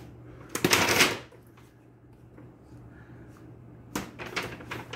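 Plastic bag rustling as it is handled, in two bursts: one about half a second in, and a choppier one near the end.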